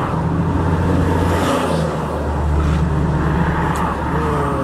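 Highway traffic passing, heard from inside a stopped pickup truck's cab as a steady low rumble, with one passing vehicle's pitch falling about four seconds in.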